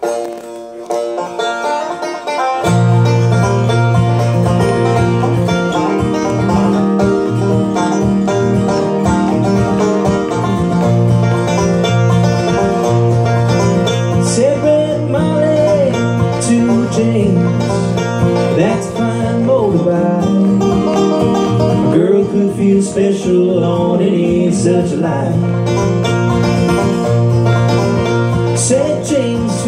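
Acoustic guitar and banjo playing an up-tempo bluegrass-style tune together, the guitar strummed and the banjo picked. A fuller, lower strummed accompaniment comes in about two and a half seconds in.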